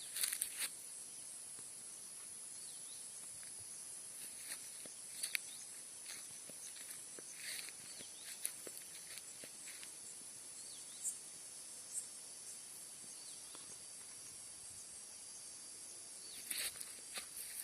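Faint, steady high-pitched chirring of insects, with a few brief chirps and clicks scattered through.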